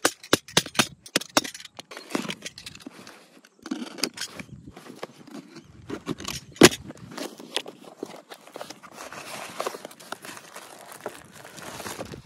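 Handling noise: a run of sharp clicks and taps with scraping, the sharpest click about six and a half seconds in, turning to a denser rustling in the last few seconds.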